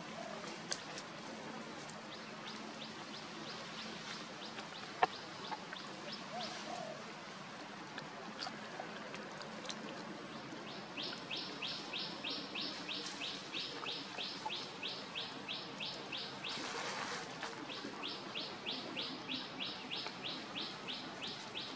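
A bird calling: a steady run of short high notes, about three a second, starting about halfway through with a brief break and a rustle near the end. A single sharp click about five seconds in.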